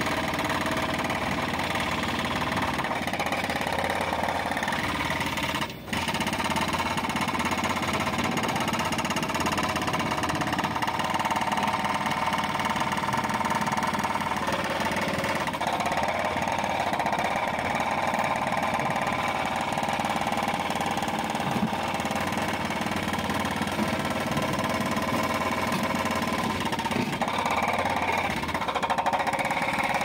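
Diesel engines of backhoe loaders running steadily while the backhoe arm digs, with the engine note changing about halfway through and again near the end. There is a momentary break in the sound about six seconds in.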